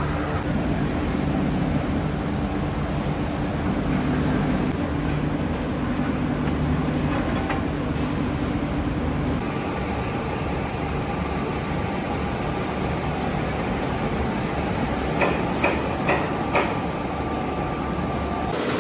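Steady, loud metalworking factory machinery running, its tone shifting partway through. Near the end come four quick sharp metal clanks.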